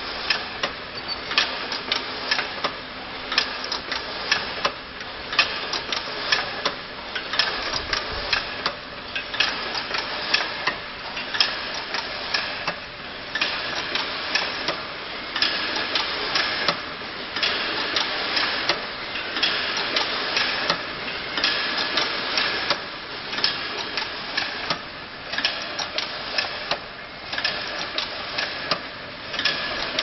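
Automatic crimped wire mesh weaving machine running, with fast, uneven clicking and clatter over a continuous mechanical rattle.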